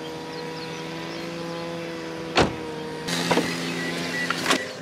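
Kei van engine running steadily, heard from inside the cabin while driving. A sharp knock comes about halfway through, then a rougher stretch with more knocks near the end.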